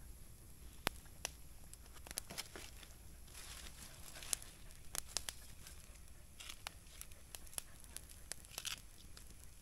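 Dry leaves and twigs crackling and rustling underfoot and under hand: scattered sharp snaps and ticks, with short bursts of rustling about a third, two thirds and nine-tenths of the way through.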